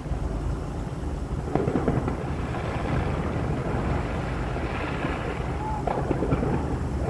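Distant fireworks fired from the top of a skyscraper: a continuous rolling crackle of bursts with sharper reports about one and a half seconds and six seconds in, over a steady low rumble.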